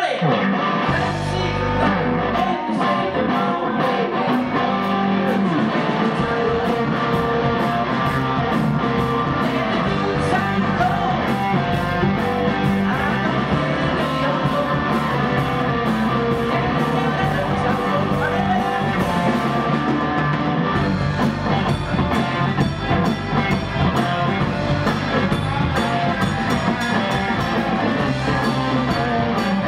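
Live blues-rock band playing: electric guitars over bass guitar and a drum kit, with a steady beat.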